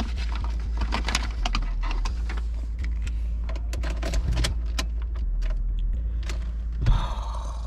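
Keys jangling and clicking as the key is worked in a Honda Accord's ignition; the engine does not start, its battery dead. A louder rustle near the end.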